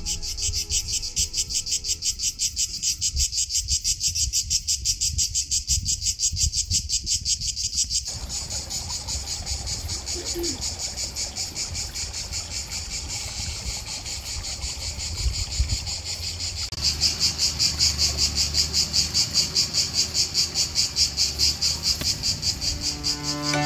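A loud chorus of singing insects, fast and pulsing, swelling and fading about twice a second and growing louder near the end, with a low rumble underneath.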